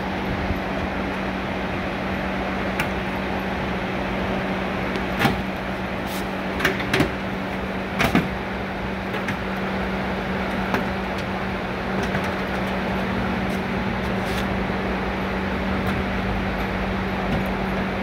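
A steady mechanical hum, like a shop fan, with a handful of light clicks and knocks from a classic car's vinyl door panel and door hardware being handled.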